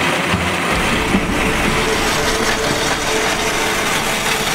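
Steady rushing noise aboard a racing sailboat under way, wind on the microphone and water along the hull, with a faint steady hum from about a second in.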